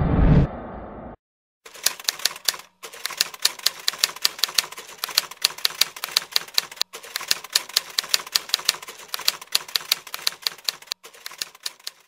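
Typewriter keystroke sound effect, rapid clicks at about five or six a second with a few short breaks, playing as on-screen text types out letter by letter. It is preceded in the first second by the end of intro music with a rising swell.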